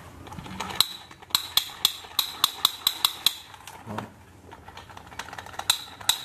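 Sharp plastic clicks from a black plastic toy submachine gun's mechanism being worked by hand, a quick run of about four a second for some two seconds, then a few single clicks near the end. A dull knock about four seconds in.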